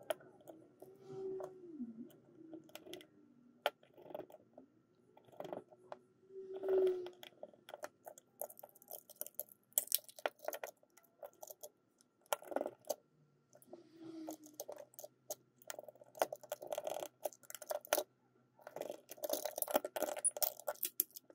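Plastic case and circuit board of a digital luggage scale being handled and pressed back together: irregular clicks and taps with a few brief squeaks of plastic, coming thicker and faster near the end.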